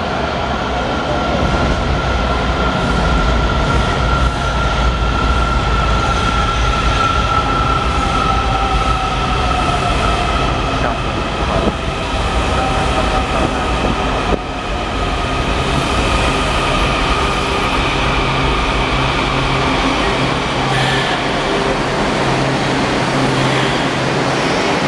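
Washington Metro 7000-series subway train pulling into the station and slowing along the platform: a steady rumble with motor whine that slowly falls in pitch as the train decelerates.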